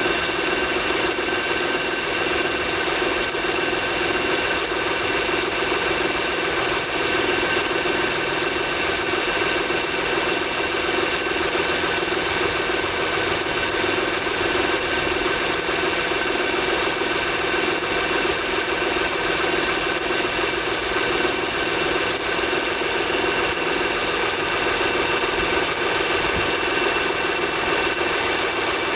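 Honda Pilot's V6 engine running cold, with a steady, fast ticking knock over the engine note. The owner hears this knock only on a cold engine; it is gone once the engine is warm.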